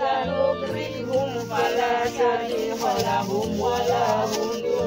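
Background music: a melody over a repeating bass line with a shaker rhythm.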